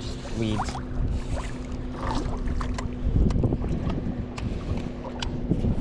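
Wind rumbling on the microphone over a steady low hum, with scattered light clicks; the rumble swells about three seconds in and again near the end.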